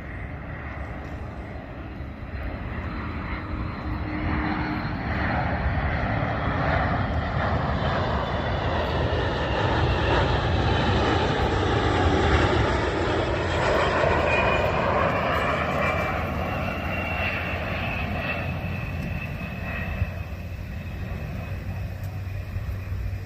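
Boeing KC-135R Stratotanker's four CFM56 (F108) turbofan jet engines in a low flypast: the jet roar grows louder toward the middle, peaks, then fades as the tanker flies away, with tones in it that slide in pitch as it goes by.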